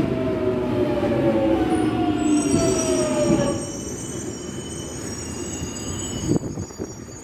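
London Underground 1996 stock Jubilee line train braking to a stop at the platform. Its traction motor whine falls steadily in pitch as it slows and fades about three and a half seconds in, under a high brake squeal that lasts to the end. A single short knock comes about six seconds in as the train halts.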